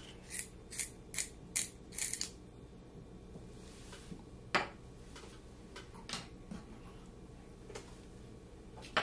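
Drawing supplies handled off-camera: a quick run of five scratchy strokes in the first two seconds, then a few separate sharp clicks and taps, the loudest about halfway through.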